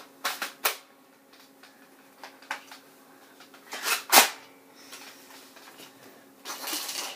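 Toy MP40 BB gun being handled, with plastic clicks and knocks as its movable magazine is worked. There is one loud knock about four seconds in and a rustling scrape near the end.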